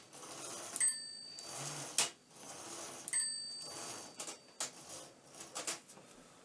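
Underwood manual typewriter carriage slid freely with the carriage-release lever held, the toothed rack lifted clear of the escapement. The margin bell dings twice, about a second in and again after three seconds, among sharp clacks and knocks of the carriage.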